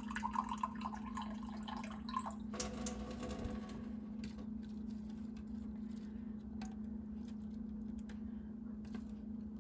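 Water poured from a glass into the bottom of an aluminium foil roasting pan, over a steady low hum.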